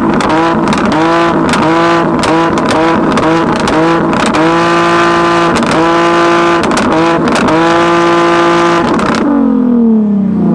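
Car engine revved against a two-step launch rev limiter, with sharp popping and crackling throughout. The revs bounce off the limit about twice a second at first, then hang at the limit for a couple of seconds at a time. Near the end the throttle is let go and the revs fall away.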